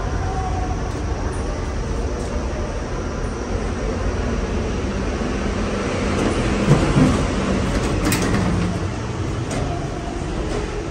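Steady low background rumble that swells briefly about six seconds in, with a sharp click about eight seconds in.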